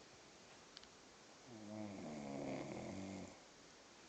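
A single long snore, pitched and buzzing, lasting a little under two seconds and starting about one and a half seconds in.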